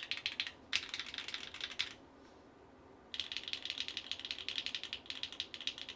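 Fast typing on a Geonworks F1-722 mechanical keyboard with Sillyworks x Gateron Slay Type A switches on an aluminium plate: rapid runs of keystrokes, a pause of about a second, then typing resumes.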